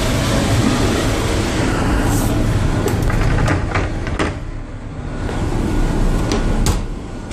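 Steady low hum of a crew boat's engines and machinery running underway, carried through the hull. Several sharp clicks and knocks from a door and footsteps break into it, and the hum dips briefly about four and a half seconds in.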